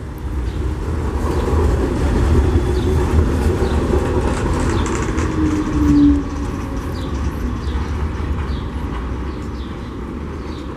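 Old tram passing on street rails. The sound builds over the first couple of seconds and is loudest through the middle, with a brief whine about six seconds in, then slowly fades.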